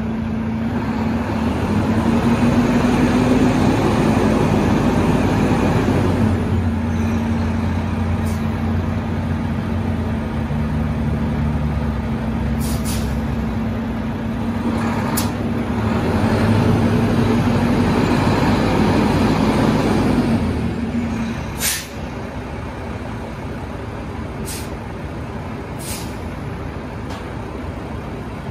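Volvo D11 10.8-litre diesel of a 2009 Volvo VNM semi tractor running as the truck moves at low speed. About three quarters of the way through, the steady engine note drops away and a sharp burst of air brake hiss sounds, with a few other short air hisses scattered through.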